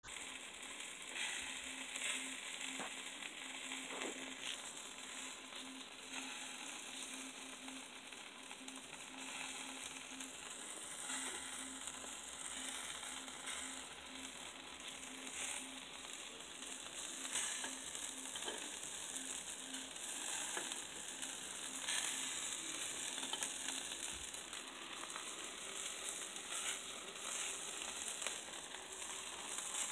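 Chicken sizzling on the grate of a charcoal grill, a steady frying hiss with scattered small crackles.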